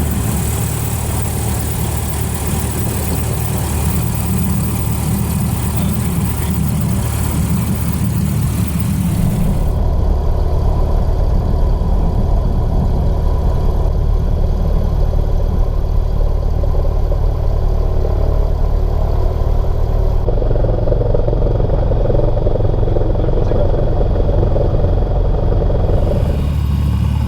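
Cessna 150's four-cylinder piston engine and propeller droning steadily, heard inside the cockpit. The tone of the drone shifts abruptly about ten seconds in, again about halfway through and near the end.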